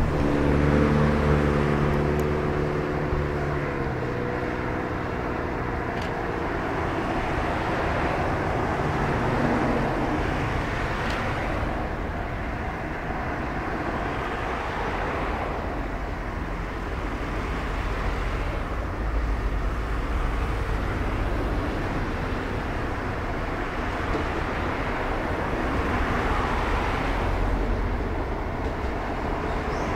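Electric train running on the track: a steady noise of wheels and running gear, with a pitched motor hum in the first few seconds that dips slightly and fades out.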